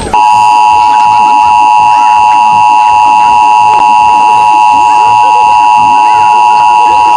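Emergency Alert System attention signal: the two-tone alert sound held steady and loud. It starts abruptly just after the opening and runs unbroken for about eight seconds, the warning that precedes a broadcast emergency message.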